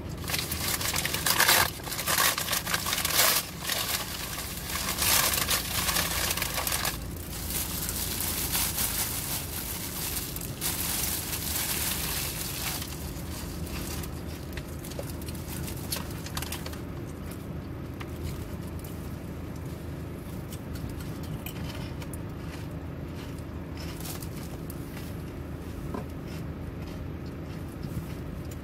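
Clear plastic wrap crinkling and rustling as a wrapped sandwich is handled and eaten. It is busiest for the first seven seconds or so, then fewer and quieter, over a steady low hum.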